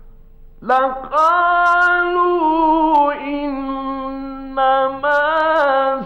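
A male reciter chanting the Quran in a melodic style, holding long ornamented notes with a slow wavering pitch and short breaks between phrases. The voice comes from an old 1950s radio recording.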